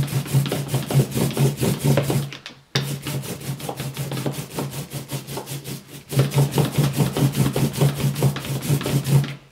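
Hand ink roller (brayer) rolled back and forth through printing ink in a plastic tray: a fast, dense run of tiny sticky clicks and rubbing, spreading the ink evenly over the roller before inking the lino. It pauses briefly about two seconds in and again about six seconds in.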